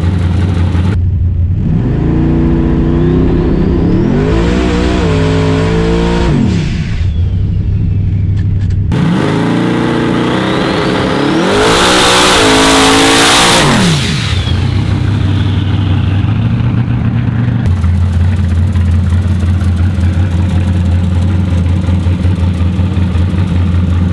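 Street-race truck's engine with a full exhaust idling, then revved hard twice, each time rising and falling over a few seconds. The second run, about ten seconds in, is the loudest and carries a loud rushing noise before the engine drops back to a steady idle.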